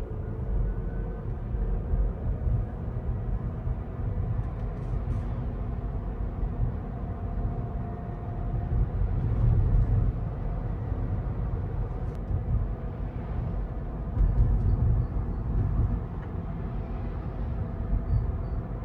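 Cabin noise inside a Rivian R1T electric pickup on the move: a steady low road and tyre rumble that swells and eases, with faint thin tones above it drifting slowly in pitch.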